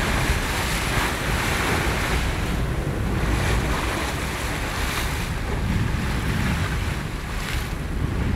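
Wind rumbling on the microphone over the wash of open-sea waves, a steady noise with no distinct events.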